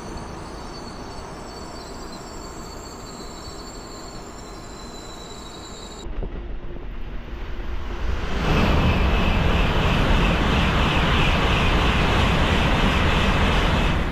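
Shinkansen bullet train passing through the station at high speed without stopping. A loud, steady rush of wind and wheel noise with a faint whistle comes in sharply about eight seconds in and holds for about five seconds. Before that there is a quieter, steady rail rumble.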